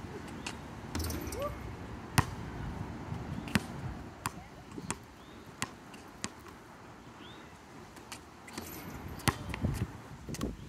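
A basketball dribbled on a hard outdoor court: single sharp bounces, mostly about a second apart, the loudest about two seconds in.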